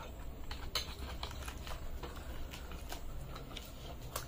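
Quiet eating sounds of people eating luchi by hand: chewing and scattered soft ticks and clicks from tearing the fried bread, with a sharper click near the end.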